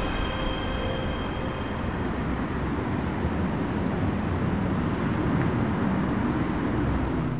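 Steady noise of distant city traffic, with held music notes fading out during the first two seconds.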